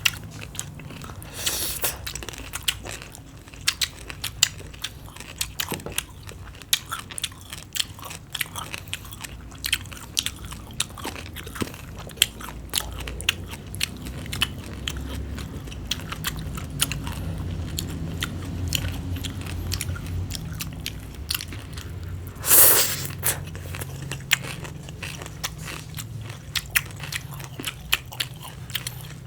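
Close-up chewing of crunchy green papaya salad and cucumber: a steady run of crisp crunches and wet mouth clicks, with one loud crunching bite about three-quarters of the way through.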